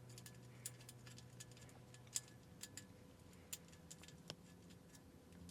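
Faint, irregular small metal clicks and taps of a machine screw and nut being fitted by hand into an electrical box, with a few sharper clicks in the middle.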